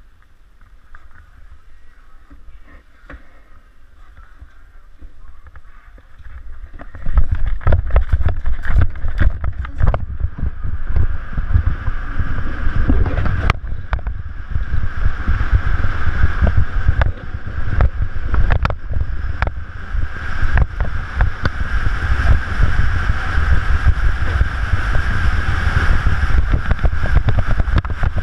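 Doubles luge sled running down an ice track, heard from onboard: about seven seconds in, a loud continuous rumble and scrape of the steel runners on ice begins, full of rattles and knocks from the sled and carrying on at speed.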